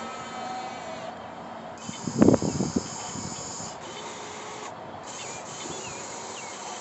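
Radio-controlled excavator working: a high motor whine that starts and stops as the controls are worked, over a steady hiss, with a short burst of scraping and knocks about two seconds in.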